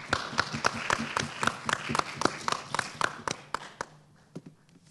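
A small group applauding with hand claps, about four claps a second, dying away near the end.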